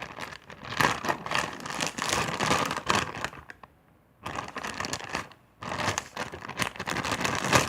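Plastic bag crinkling and rustling in irregular bursts as slime is stuffed into it, with a short pause a little after halfway.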